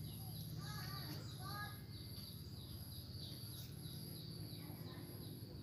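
Birds chirping a few times, with insects trilling in a steady pulsing pattern over a low steady hum.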